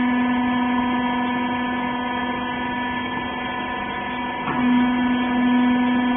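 Steady electric hum of a clothes baler's hydraulic pump motor running, with a brief wobble in pitch about four and a half seconds in.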